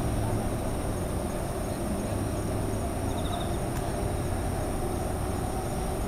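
Insects such as crickets singing in steady high trills over a low, steady rumble of city traffic. A short run of chirps stands out about three seconds in.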